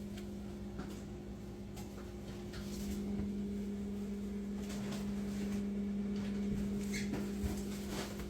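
Whirlpool refrigerator's freezer drawer being slid on its new rail and pushed shut: scattered light clicks and knocks over a steady hum.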